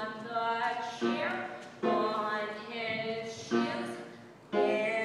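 A girl singing a show tune solo, in phrases of held notes. The last phrase falls away before a new one starts loudly near the end.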